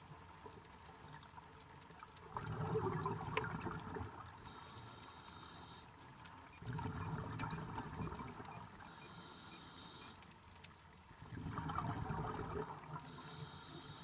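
Scuba diver's exhaled bubbles rushing from the regulator, heard underwater: three bubbling bursts of about two seconds each, some four to five seconds apart in a steady breathing rhythm, with quiet water noise between them.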